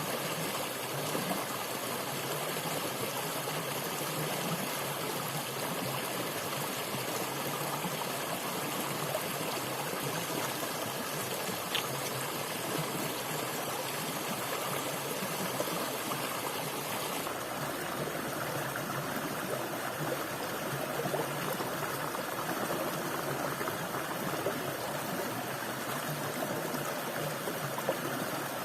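Steady running water of a stream, flowing without a break.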